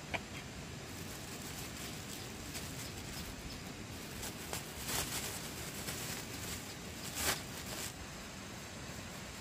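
A thin plastic bag of cooked rice crinkling as it is handled, in a few short rustles, the loudest near the end, over a steady background hiss.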